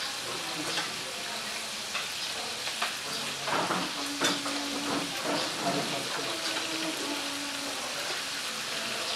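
Wood fire crackling in a shallow metal fire pan: a steady hiss with scattered sharp pops.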